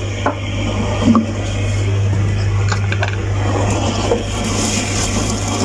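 A steady low hum with a rushing noise over it, with a few light taps as slices of bread are laid into a non-stick frying pan on a gas stove.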